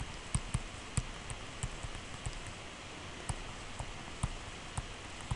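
A stylus tapping and clicking on a tablet screen during handwriting: light irregular taps, about two or three a second, over a steady background hiss.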